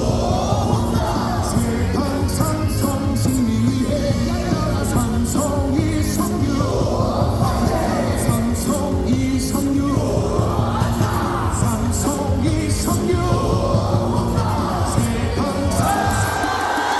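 A stadium crowd of thousands singing a cheering song in unison over loudspeaker music with a steady beat, with yells mixed in. Near the end the beat drops out.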